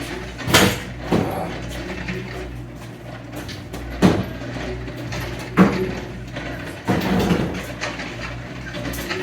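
Engine and transmission being worked into the car's engine bay on a hoist: five sharp metal clunks and knocks, about a second apart at first and then spread out, over a steady low hum.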